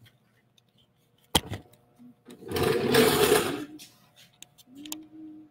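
Camera being picked up and moved: a sharp knock, then about a second of loud rubbing and scraping as it is handled. Under it is the faint steady hum of the electric pottery wheel's motor.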